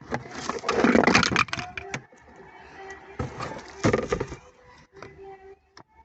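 Packaging and parts being handled: loud crinkly rustling in two bursts, about a second in and again near four seconds, with scattered clicks and knocks between.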